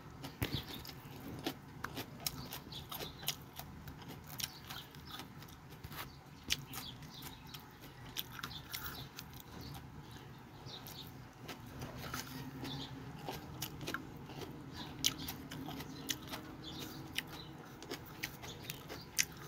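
A person biting and chewing raw mustard greens close to the microphone: irregular wet crunches and clicks of the mouth.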